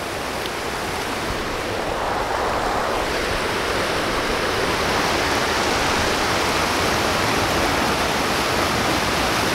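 River water rushing over a low weir: a steady, even rush of water noise that grows louder and brighter about three seconds in.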